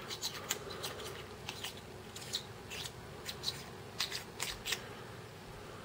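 Light, irregular metallic clicks and taps from a black Schrade tactical pen being handled and turned in the hands, stopping near the end.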